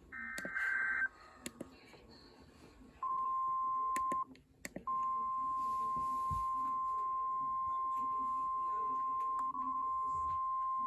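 The last burst of an EAS SAME header, a shrill warbling digital data chirp, ends about a second in. About three seconds in, the NOAA Weather Radio 1050 Hz warning alarm tone starts, one steady high tone. It drops out briefly with a few clicks, then resumes and runs on, signalling that a warning broadcast follows.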